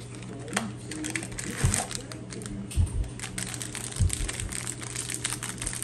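Crinkling and crackling of packaging being handled, as a cornbread-mix package is opened, with a few soft low thumps about two, three and four seconds in.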